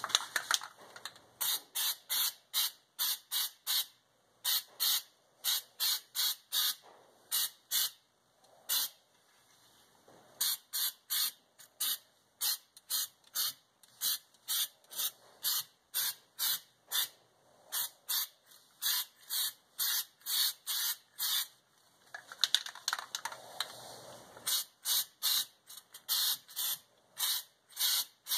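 Aerosol can of spray-on bed liner hissing in short bursts, about two a second, in runs with brief pauses as the coating is laid onto the trunk floor.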